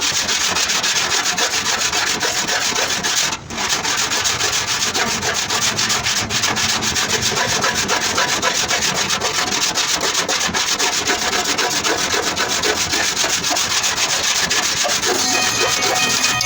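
Power sanding on a car's damaged front body panel: a continuous abrasive hiss with a fine, fast, even pulse, cutting out for a moment about three and a half seconds in.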